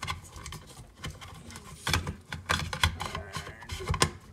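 Plastic flush-mount LED light fixture being pushed and worked up into a recessed ceiling can, giving a scatter of small clicks, knocks and scrapes as it seats, with sharper taps about two and four seconds in.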